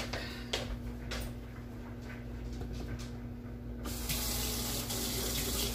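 A few light clicks, then a kitchen tap turned on about two-thirds of the way in, water running steadily into the sink.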